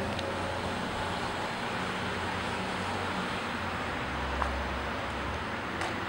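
Steady outdoor background noise of distant road traffic, with no clear single event.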